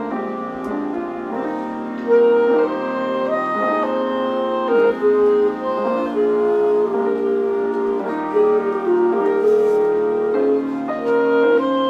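Clarinet and piano playing classical music; the clarinet comes in with long held melody notes about two seconds in over the piano accompaniment.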